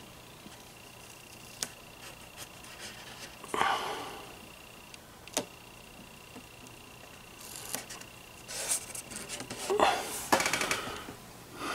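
Blue painter's tape handled against a wooden radio cabinet: strips torn and unrolled, then pressed and rubbed down onto the wood, heard as a few sharp clicks and short rasping bursts. A faint steady high whine sounds behind them.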